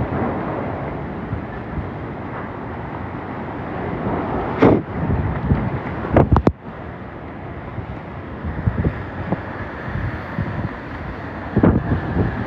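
Hurricane winds blowing hard, buffeting the microphone in a steady roar of wind noise, with a few sharp bangs about five and six seconds in and another near the end.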